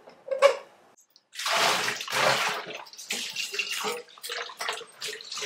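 Kitchen tap water running and splashing into a sink in two short gushes, followed by lighter splashing with a few small clinks.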